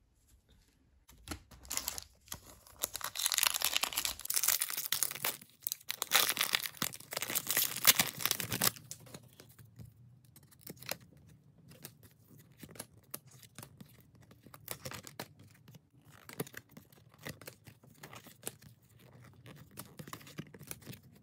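A 1993-94 Skybox Premium basketball card pack being torn open, its wrapper crackling and crinkling for several seconds. After that come softer, scattered clicks and rustles as the cards are thumbed through and flipped one by one.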